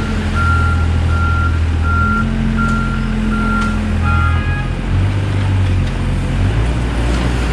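Hyundai 55W wheeled excavator's diesel engine running under load, its pitch shifting a few times as it digs at a tree stump, while a warning alarm beeps evenly about once every 0.7 seconds, six beeps that stop a little over four seconds in.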